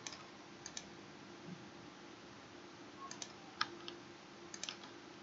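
Scattered single clicks of a computer mouse button, some in quick pairs, over a faint steady hum.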